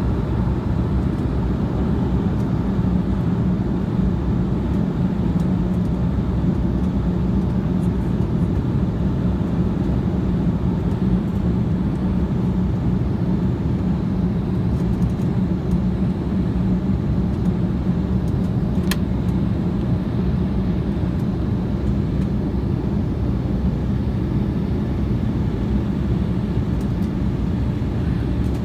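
Airliner cabin noise: a steady drone of engines and airflow, with a strong low hum. A single brief click sounds about nineteen seconds in.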